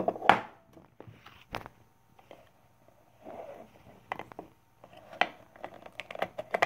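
Plastic clicks and knocks from handling a digital alarm clock and switching it on, with a quick run of clicks near the end.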